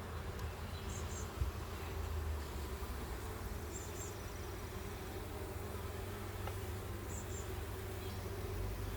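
Honeybees buzzing steadily around an opened beehive, a dense continuous hum.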